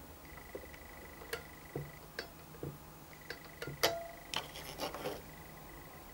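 Scattered light plastic clicks and knocks from a hand-held radio-control transmitter, with a cluster of clicks about four to five seconds in. A faint steady high-pitched whine runs underneath and drops out briefly in the middle.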